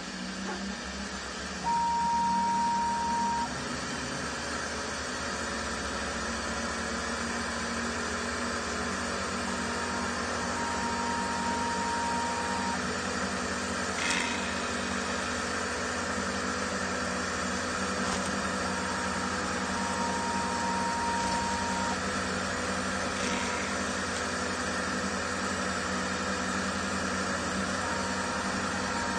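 Denford Orac CNC lathe running a facing program on machinable wax, spindle turning and the tool cutting, with a steady mechanical hum. A high steady tone about two seconds long comes four times, roughly every nine seconds, with a single click near the middle.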